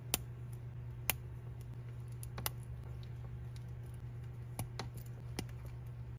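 Irregular small sharp clicks of plastic minifigure parts being handled and snapped together, over a steady low hum.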